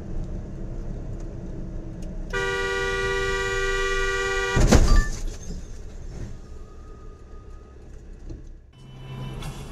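A vehicle horn held steadily for about two seconds, cut off by a loud bang as a car cutting in front collides, over the low running of the engine and road noise.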